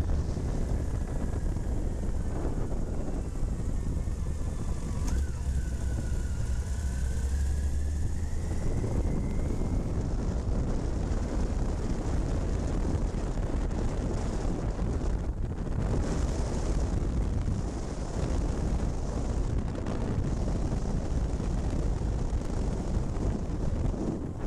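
Motorcycle riding at road speed, heard from a camera mounted on the bike: a steady rush of engine, tyre and wind noise. A faint whine rises and falls in pitch between about two and ten seconds in.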